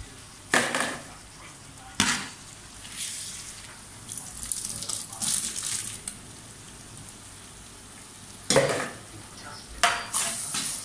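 Long metal ladle stirring curd into a large metal pot of hot, steaming biryani masala, with four sharp clanks of the ladle against the pot, two near the start and two near the end, and a hissing, sizzling stir in between.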